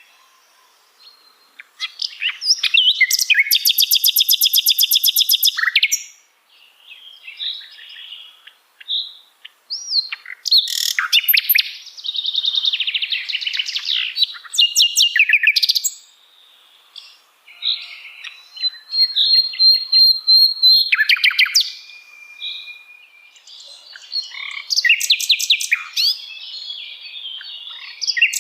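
Common nightingale singing a string of varied phrases separated by short pauses. Some phrases are fast runs of rapidly repeated notes, the longest about two to six seconds in; others are whistles and chirps.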